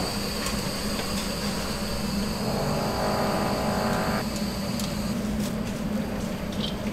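Steady low mechanical hum of kitchen machinery, with a brief pitched tone lasting about two seconds in the middle.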